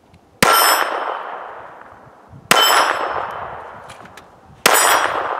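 Three shots from a Taurus PT22 Poly .22 LR pistol, about two seconds apart, each followed by the clang of a steel plate target ringing and fading away.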